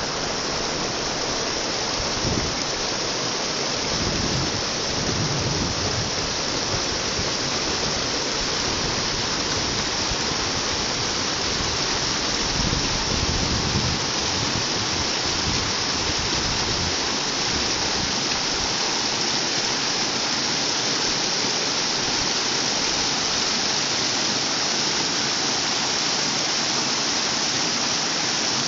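Inflow water rushing and churning over rocks and a fallen branch as it pours into a reservoir: a steady, even hiss of white water. Uneven low rumbles come and go through the first half.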